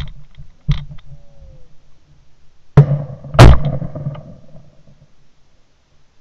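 Two shotgun shots about two-thirds of a second apart, very loud and close, each fading over about a second: a double from a 12-gauge over-and-under at flushing quail. Two lighter knocks come in the first second.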